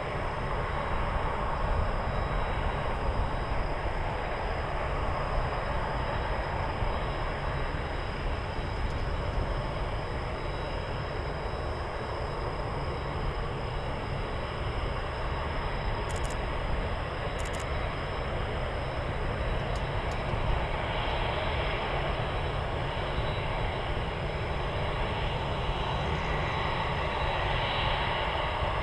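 Jet engine noise from a Boeing 747-8F freighter's four GEnx turbofans, a steady rushing without sharp changes.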